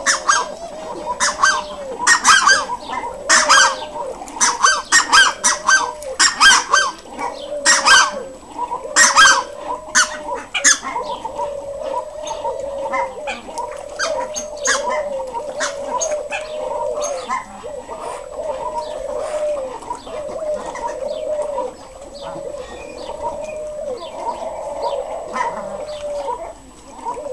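Ducks on open water giving short calls over and over, about one a second. Many sharp clicks come in among the calls over roughly the first ten seconds.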